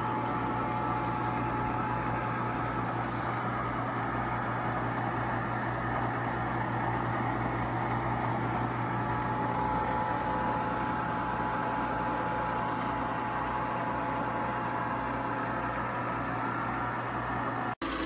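KUMIO compressor ice cream maker running: a steady mechanical hum from its compressor and churning motor, with a faint steady whine above it. The sound cuts out for an instant near the end.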